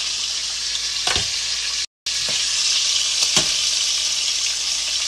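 Chicken wings deep-frying in a pot of hot oil: a steady crackling sizzle, with a couple of light knocks about one and three and a half seconds in. The sound cuts out for a moment just before two seconds in.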